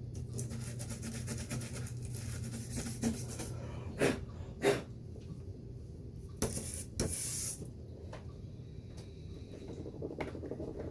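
Stiff toothbrush scrubbing dirt out of a window track in quick scratchy strokes. Several sharp knocks and a brief hiss follow partway through.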